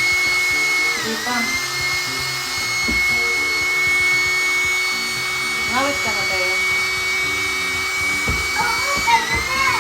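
Electric air pump running steadily with a constant motor whine as it inflates a double airbed. The pitch dips briefly and recovers about a second in and again near the end.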